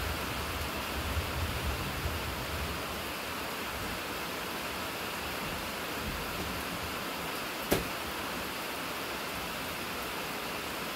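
Steady rain falling, an even hiss with a low rumble in the first few seconds. A single sharp click about three-quarters of the way through.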